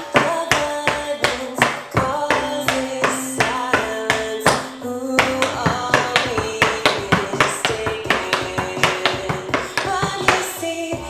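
Metal-tipped tap shoes striking a portable wooden tap floor in quick rhythmic steps, over a rock song with singing and guitar.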